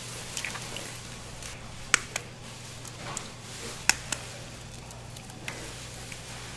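Eggs being cracked by hand over a stainless steel pan: sharp taps every second or two, several in pairs about a fifth of a second apart, over a steady low hum.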